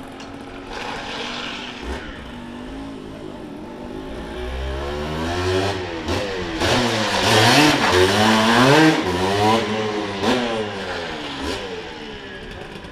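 Aprilia ETX 125 two-stroke enduro motorcycle engine revving up and down over and over as the bike rides in close, loudest midway, then fading as it rides away.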